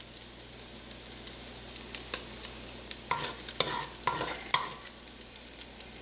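Rendered bacon fat sizzling and crackling in an enameled cast-iron Dutch oven, with a slotted spoon stirring through the fat and scraping the pot four times about three to four and a half seconds in as the bacon is scooped out.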